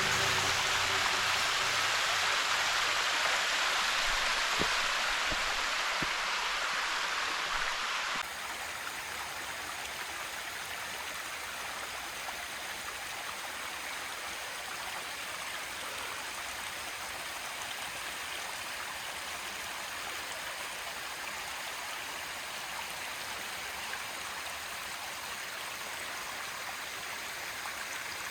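Steady rush of flowing stream water. About a quarter of the way in it drops abruptly to a quieter, softer rush.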